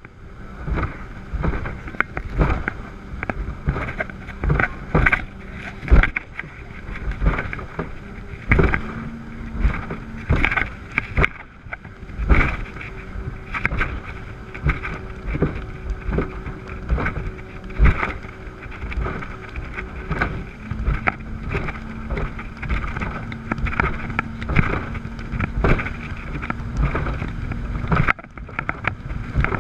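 Twin Yamaha 350 hp four-stroke V8 outboards droning under way on a RIB, the engine note stepping up a little about eight seconds in, dropping back, and rising again about two-thirds through. Over it, sharp irregular thuds and slaps, about one a second, as the hull hits the chop, with wind on the microphone.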